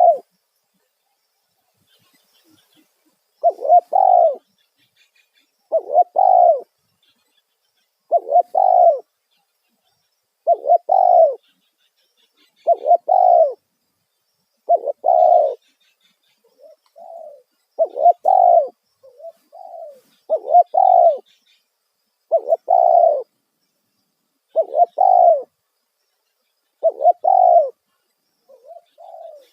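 Spotted dove (tekukur) cooing loudly, repeating the same short phrase of a few notes about every two seconds, with a few fainter coos between phrases around the middle and near the end.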